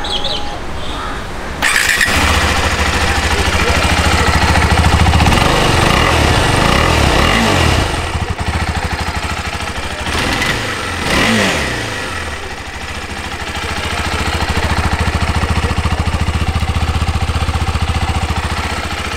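A KTM 390 Adventure's single-cylinder engine starting on the electric starter about two seconds in, then idling. The engine is revved twice, a slower rise and fall around the middle and a quicker, sharper blip soon after, before it settles back to a steady idle.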